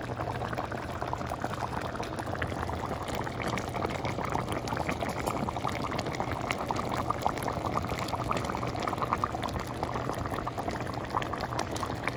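A pot of balbacua, a Filipino beef stew, bubbling steadily as it simmers: a dense crackle of small popping bubbles over a low steady hum.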